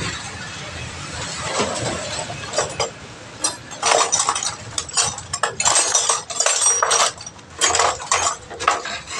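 Steel tyre tool clanking against a steel wheel rim while a tyre is worked on the rim during puncture repair: after a few seconds of rustling, a rapid, irregular run of a dozen or more sharp metallic clinks and clanks begins about three and a half seconds in.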